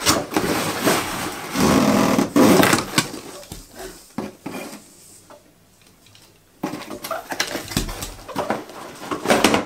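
Cardboard packaging rustling and scraping as a vacuum cleaner's hose is pulled out of its box. Scattered light knocks and clicks follow as the plastic hose is handled against the vacuum body, with a quieter pause midway.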